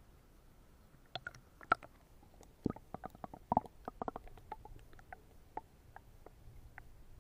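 Muffled gurgling of water and bubbles around an action camera's sealed waterproof case as it is dunked under the pool surface. A flurry of pops begins about a second in and thins out toward the end.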